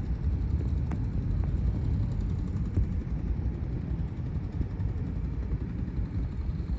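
Low, steady rumble of a jet airliner's engines as it climbs away just after takeoff.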